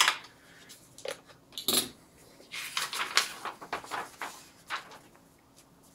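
Drawing paper and a metal binder clip being handled as sheets are taken off a drawing board. There is a sharp click at the start and a knock just before two seconds in, then about two seconds of paper rustling and sliding, with a few small clicks near the end.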